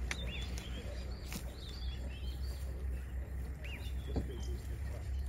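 Birds chirping, short arched calls repeated every second or so, over a steady low rumble.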